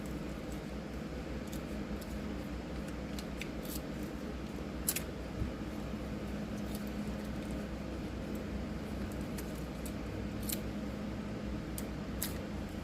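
Occasional small sharp clicks of keys and lock parts being handled, about eight spread over the stretch, over a steady low hum.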